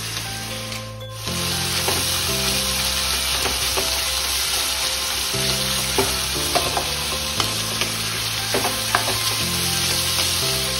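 Chopped onions sizzling in hot mustard oil in a kadhai, with the scattered taps and scrapes of a spoon stirring them.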